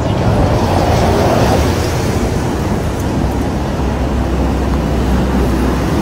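Traffic noise from a busy city road, with a deeper low rumble joining about two-thirds of the way through.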